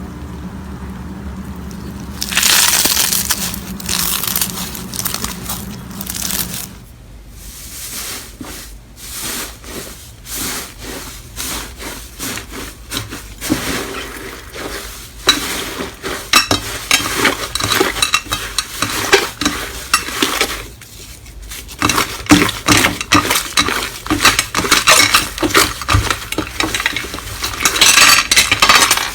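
Slime being handled by hand, pressed and stretched, making dense crackling and clicking. The sound comes in several stretches, with brief lulls in between.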